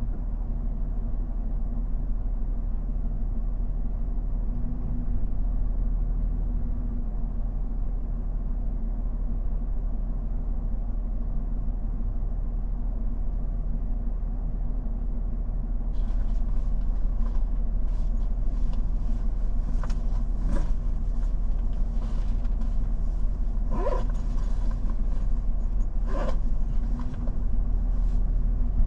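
A stopped truck's engine idling with a steady low drone. About halfway through, a higher hiss comes in, with several short sharp noises over it.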